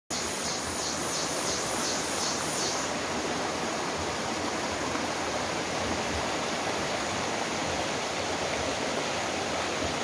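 Rushing water of a rocky forest stream spilling over boulders into a pool, a steady, even noise. During the first three seconds a high-pitched pulsing, about four pulses a second, sounds over it.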